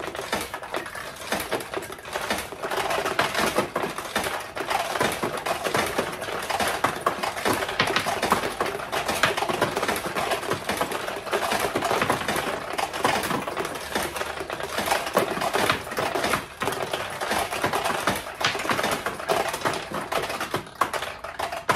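Vintage Power Flash Thunderbird pachinko machine being played: a dense, continuous clatter of steel balls clicking off the pins and rattling down through the playfield as they are fired one after another with the shooting lever.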